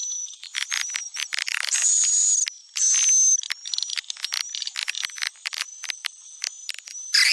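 Swiftlet calling sound (suara panggil walet), the lure recording played to draw swiftlets into a nesting house. It is a dense stream of high, buzzy chirps and rapid clicks over a steady high tone.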